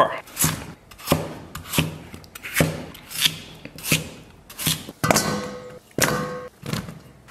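Chinese cleaver chopping a peeled potato into roll-cut chunks on a thick wooden chopping block, a sharp knock about every two-thirds of a second. Near the end the chunks go into a stainless steel bowl, which rings briefly.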